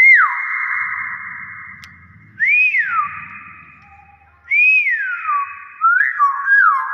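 Hill myna whistling: a series of loud whistles that each swoop up and then fall, about two seconds apart, the last a quick double, each trailing off in a long echo.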